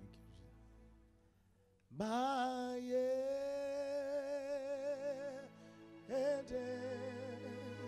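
Worship music. A soft sustained instrumental chord fades out, then about two seconds in a singer enters with a long held note with vibrato. A second sung phrase starts about six seconds in over sustained chords.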